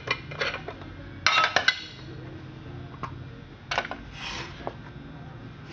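Scattered light metallic clinks and knocks, with a quick cluster about a second and a half in, from the old McCulloch chainsaw being handled while not running.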